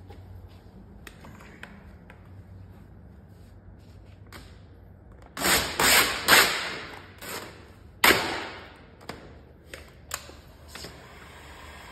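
Pearl metal rose-gold vinyl wrap film being pulled up off a car door panel: several loud crackling, rustling pulls about five to seven seconds in and another sharp one about eight seconds in, then a few light crinkles.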